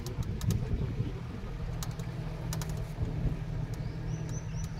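Vehicle engine and road rumble while driving slowly, with short bursts of rapid high clicking now and then. A bird chirps a few short rising notes near the end.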